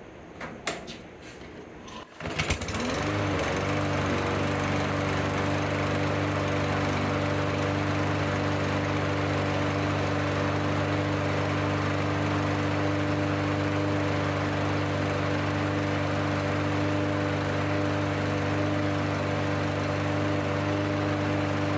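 A Briggs & Stratton single-cylinder engine on a Murray push mower, freshly rebuilt after a compression loss and with its blade fitted, starts about two seconds in. It revs up briefly and settles into a steady, even run.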